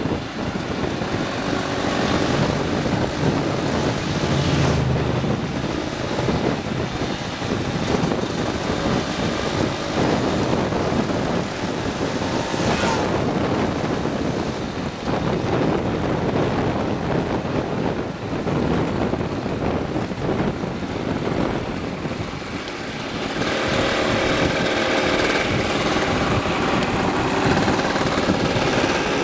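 Small two-stroke moped engines running on the move, with wind buffeting the microphone; the engine sound gets a little louder and fuller about three-quarters of the way through.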